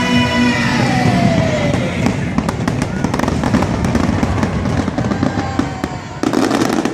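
Fireworks going off in quick succession, with many sharp pops and crackles from about two seconds in.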